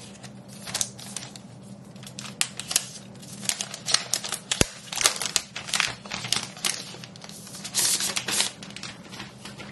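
Clear plastic protective wrap crinkling and rustling as it is peeled off a new laptop, in a run of irregular crackles with one sharp click a little before halfway, over a faint low hum.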